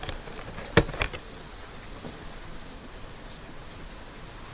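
Pretty loud rain falling steadily, an even hiss of rain on surfaces, with one sharp tap just under a second in.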